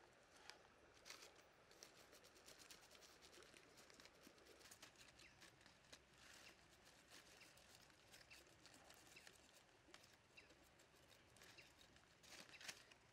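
Near silence, with faint scattered clicks and rustles.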